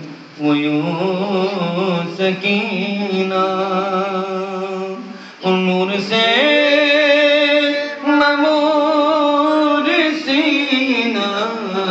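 A man sings a devotional chant solo into a handheld microphone, drawing out long wavering notes. He breaks briefly for breath near the start and again about five seconds in.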